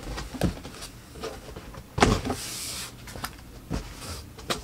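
Cardboard packaging being opened and handled: several sharp knocks and taps of cardboard, with a scraping slide of cardboard about two seconds in.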